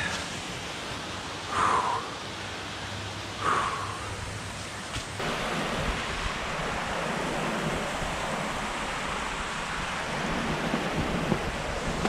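Two brief scuffs in dry leaf litter in the first few seconds, then, from about five seconds in, a steady rush of meltwater running over rocks in a small creek, with wind noise on the microphone.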